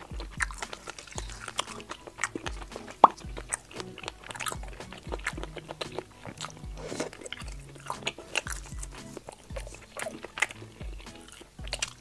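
Close-miked chewing and biting of soft, springy oden skewer items (fish cake and crab stick), with wet mouth clicks and smacks and a sharp click about three seconds in, over background music.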